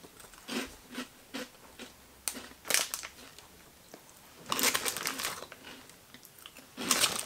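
Wurzener corn-peanut flips being bitten and chewed, a string of short crunches, with the crinkly snack bag rustling about halfway through.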